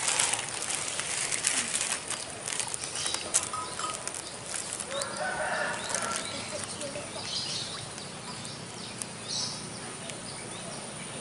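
Irregular rustling and flapping clicks, densest in the first few seconds, then fading to a quieter background with a few faint high chirps.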